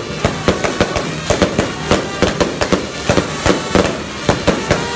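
A rapid run of sharp cracks and bangs, about three or four a second, from firecrackers going off.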